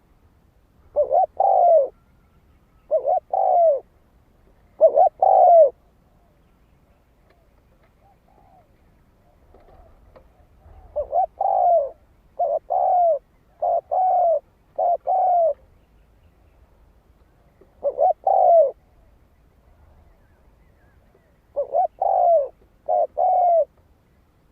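Spotted dove cooing: short phrases of low, mellow notes, repeated again and again with pauses of a few seconds between them.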